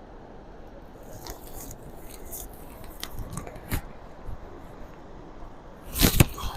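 Footsteps and handling clicks from someone walking down steps with a handheld camera, over a steady low rushing noise. A loud rustle near the end is the loudest sound.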